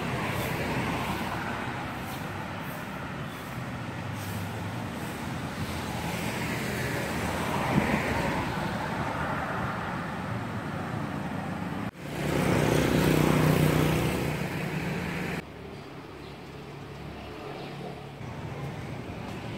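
Street traffic noise with vehicles passing. A louder vehicle sound with a low hum comes in a little past the middle and cuts off abruptly after a few seconds.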